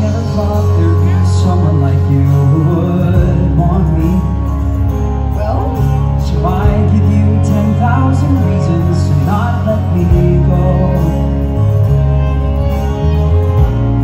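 A Broadway show song played through the stage sound system: accompaniment with held low bass notes under sustained chords, and a singer's voice coming in at times.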